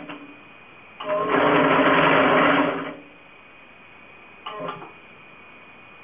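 A homemade maypole braiding machine runs for about two seconds, its bobbin carriers going round with a steady mechanical hum. It gives a brief blip at the very start and a second short run about four and a half seconds in.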